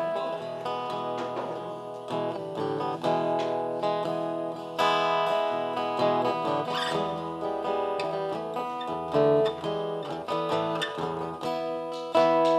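Acoustic guitar playing live, a run of plucked notes and strummed chords, growing louder near the end.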